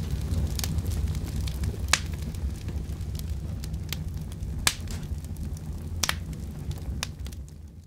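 Fire crackling in a fireplace: a steady low rumble of flames with occasional sharp, irregular pops, fading out near the end.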